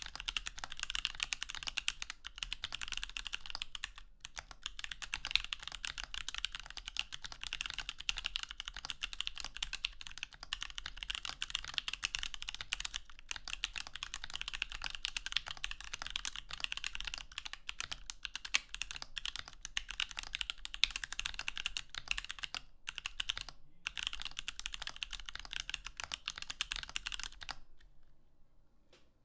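Steady, fast typing on a Switch Couture Alice mechanical keyboard with Koala switches: dense key clacks with a few brief pauses, stopping abruptly near the end.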